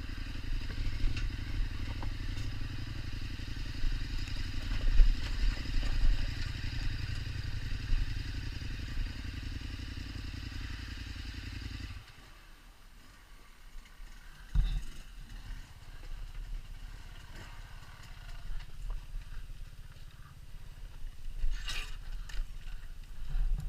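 KTM 1290 Super Adventure's V-twin engine running with uneven surges, then cutting out abruptly about halfway through. Afterwards there are only faint low sounds, a single thump and a short sharp high-pitched sound near the end.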